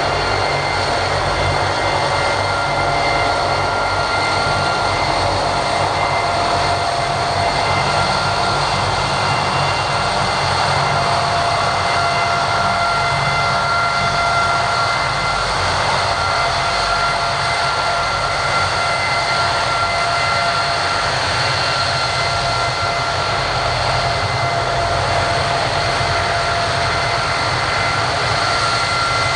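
Vickers Vanguard freighter's four Rolls-Royce Tyne turboprops running steadily while taxiing: a constant high whine of several tones over a broad rushing engine noise.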